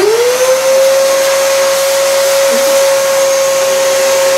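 Wet/dry shop vacuum switched on, its motor spinning up to speed and then running steady with a rushing hiss. The hose is on the blower port, so it is blowing air out instead of sucking.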